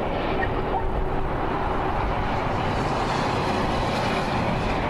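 Steady rumbling roar of a Boeing 747-400F's jet engines heard from the ground, with the upper hiss swelling slightly a few seconds in.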